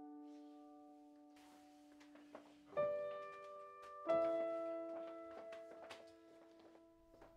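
Soft piano music: a held chord slowly fading, then new chords struck about three and four seconds in, each left to ring out.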